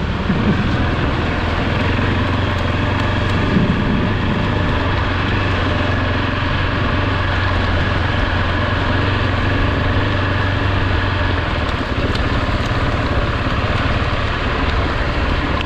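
Motorcycle engine running steadily on a wet dirt trail, over a steady hiss of rain and wind. The engine note changes about eleven seconds in.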